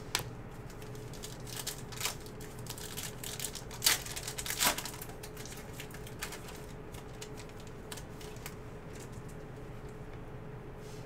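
Foil wrapper of a trading-card pack being torn open and crinkled by hand, with the cards slid out. It gives irregular crackles and snaps, loudest about four seconds in, and gets quieter over the last few seconds.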